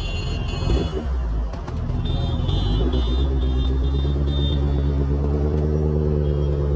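Suzuki Hayabusa's inline-four engine running at low, steady revs as the bike rolls slowly, with a high repeated beeping in the background for a couple of seconds midway.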